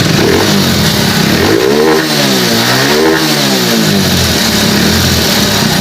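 Hero Splendor motorcycle's single-cylinder four-stroke engine idling with an aftermarket air filter fitted for a sportier sound, revved twice about two and three seconds in, the pitch rising and falling each time, then settling back to a steady idle.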